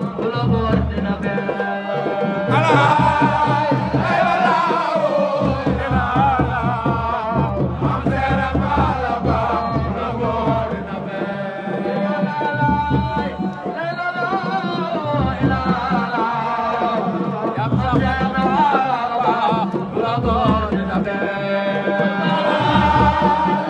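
A man singing a Sufi praise chant (zikr) into a microphone with a wavering, melismatic line, over hand-drum percussion that drops in and out every few seconds.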